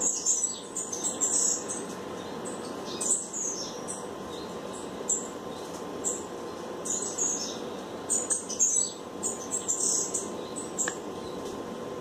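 Small birds chirping in many short, high calls at irregular intervals, over a steady low background hum.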